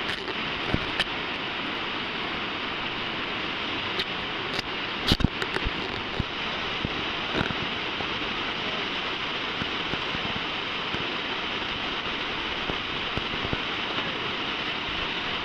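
River rapids rushing steadily, a constant wash of whitewater noise. A few brief knocks stand out, the loudest about five seconds in.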